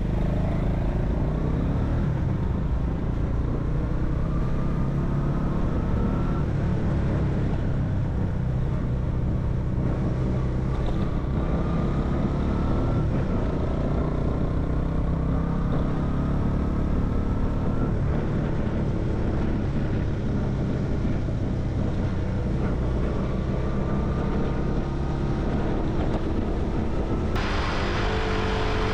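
Small single-cylinder four-stroke engine of a Honda Hunter Cub motorcycle running on the move, its pitch climbing several times as it accelerates. Near the end a louder hiss joins it.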